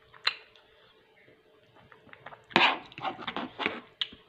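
Metal spoon and fork scraping and tapping on a plate while eating: a single click about a quarter second in, then a run of short scrapes and taps from about two and a half seconds in.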